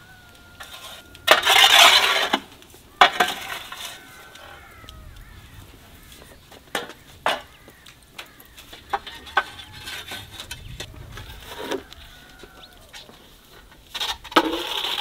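Chickens clucking in a farmyard, with small birds chirping. There is a loud harsh burst about a second and a half in, a few sharp clicks, and another loud burst near the end.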